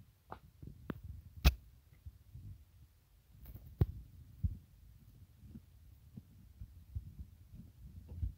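Rumbling handling noise on a phone microphone, with several sharp plastic clicks, the loudest about one and a half seconds in, as a plastic DVD case is handled and opened.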